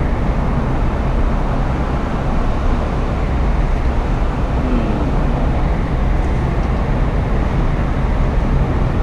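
Mazda MX-5 roadster driving on a motorway with the top down: steady wind, tyre and engine noise.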